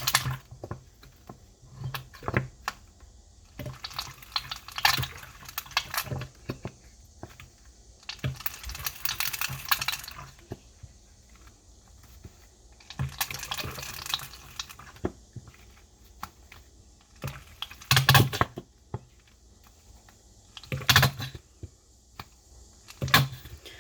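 Thick hair conditioner pouring out of an upturned plastic bottle in irregular glugs and squelches, with the bottle clicking and crackling as it is handled. The bursts come every few seconds, a couple of them running on for a second or two.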